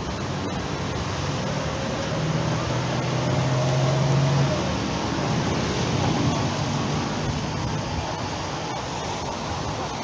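Steady outdoor wash of surf and wind with road traffic. A passing vehicle's engine hum rises to a peak about four seconds in, then fades.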